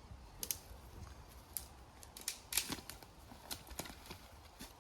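Wood cracking and snapping: about a dozen irregular sharp clicks and cracks, the loudest a little past halfway.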